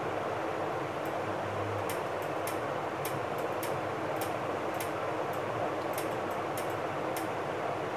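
Steady rushing background noise, like a running fan or air conditioner, with about a dozen faint, irregular light ticks.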